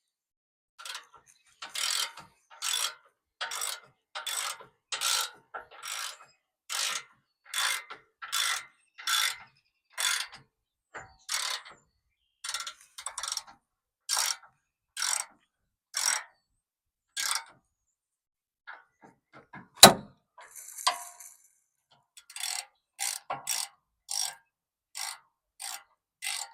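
Hand ratchet wrench tightening the bumper's mounting bolts: a regular run of ratchet clicks on each back-swing, a little more than one stroke a second. About twenty seconds in, a single sharp knock breaks the run, and the ratcheting then picks up at a quicker pace.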